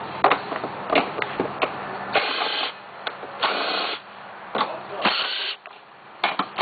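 Handling noise in a scooter's plastic under-seat storage bin: scattered clicks and knocks, with three short bursts of crinkling as the plastic-wrapped manual is touched.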